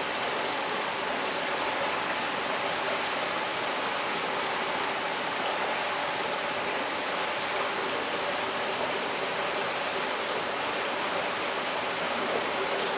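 Steady rush of water running through trout-egg incubation trays in a hatchery, with a faint steady hum underneath.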